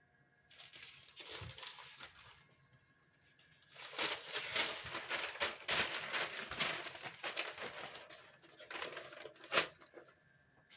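Newspaper rustling and crinkling as it is handled and unfolded, in two stretches, with a sharper crackle near the end.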